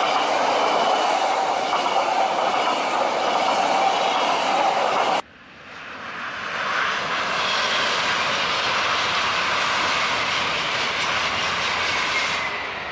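High-speed train running at speed: a loud, dense rushing noise with faint whining tones. It stops abruptly about five seconds in, and a second train's rushing swells up over a couple of seconds and holds until another sudden cut.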